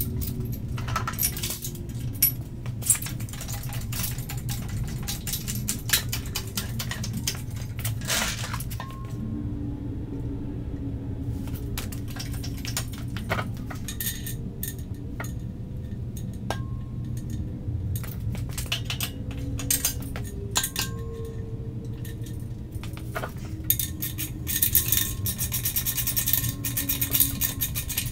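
Metal clinking and knocking of hand work as a Honda K24 engine is fitted to a CD009 transmission through an adapter plate. A steady low hum runs underneath, and a quick run of dense clicking comes near the end.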